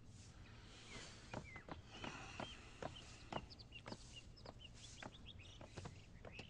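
Faint chirps of small birds, short and scattered, over quiet outdoor ambience, with a few soft taps.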